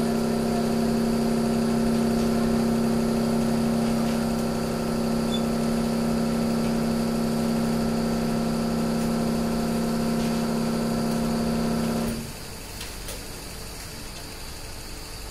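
Hydraulic power unit of a multi-platen hot press for rubberised coir sheets running with a steady hum. It cuts off suddenly about twelve seconds in, leaving a quieter background.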